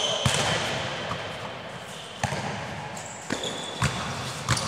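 Basketballs thudding on a gym floor, several separate bounces echoing in a large hall, with high squeaks from the court near the start and near the end.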